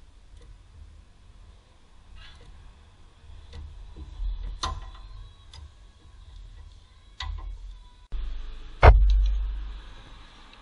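Scattered clicks and knocks over a low rumble, then a loud knock about nine seconds in that rings on and fades.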